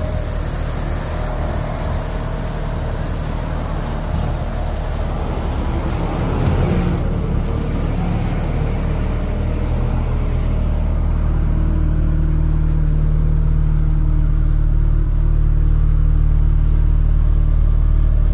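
Mitsubishi Lancer Evolution VI Tommi Mäkinen Edition's turbocharged 4G63 four-cylinder engine running soon after a start. There is a brief rise about six to seven seconds in, and the low engine sound grows gradually louder through the second half.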